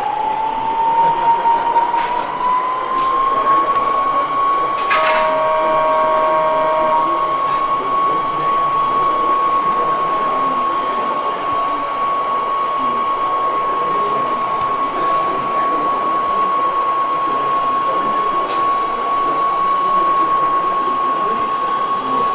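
Whine of a Gauge 1 (1:32) brass Köf II shunting locomotive model's electric motor and chain drive, rising in pitch as it speeds up and then running at a steady pitch. About five seconds in, a click and then a short horn blast of about two seconds from the model's sound module. A murmur of exhibition-hall noise lies underneath.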